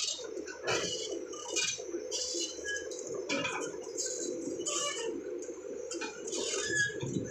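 Crawler bulldozer at work: a steady engine drone under repeated metallic clinks and clanks from the steel tracks, roughly once a second.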